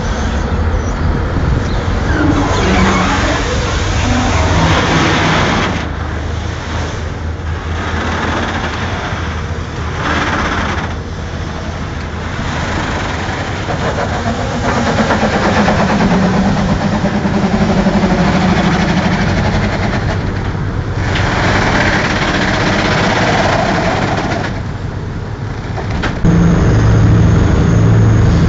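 Tugboat's diesel engines running under load: a heavy low hum with a rushing noise over it that swells and fades. The engine note rises to a clear pitched drone partway through, and a louder, steadier engine hum sets in near the end.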